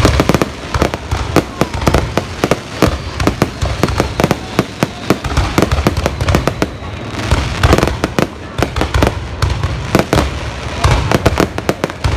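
A fireworks display: a rapid, continuous run of sharp cracks and bangs, many a second, over deep booms.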